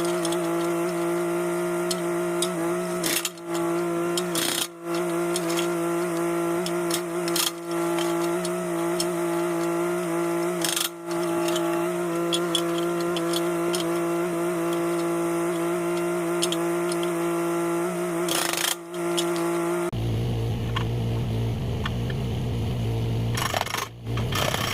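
Mini excavator engine running steadily, with a few brief knocks and dips. The sound changes abruptly near the end.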